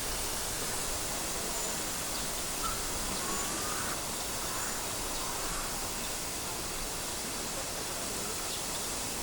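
Steady outdoor background noise, with a few faint bird calls about three to four seconds in.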